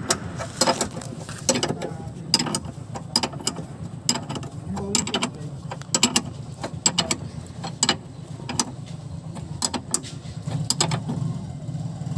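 A hand wrench working a bolt on a steering rack end, with sharp irregular metallic clicks as the tool is swung and reset. A steady low hum runs underneath.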